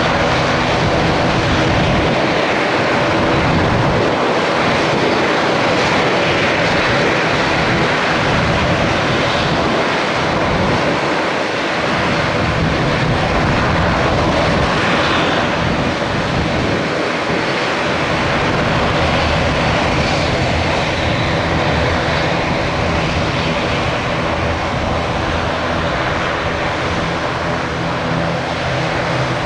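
Beechcraft B200C Super King Air's twin PT6A turboprop engines running loud and steady, with a constant engine drone.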